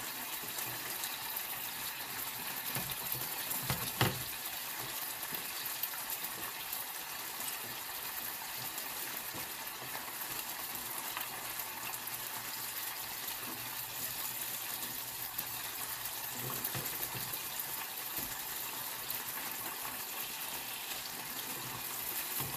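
Ilocos longganisa sausages sizzling steadily in a frying pan, frying in their own fat after the water they were parboiled in has cooked off. A sharp clink of a utensil against the pan comes about four seconds in.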